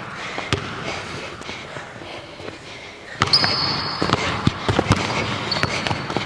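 Basketball dribbled on a hardwood gym floor, the bounces coming quicker and louder about three seconds in as a player drives, with high sneaker squeaks twice.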